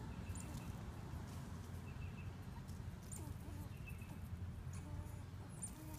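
Outdoor ambience: a steady low rumble with faint, short high chirps about once a second.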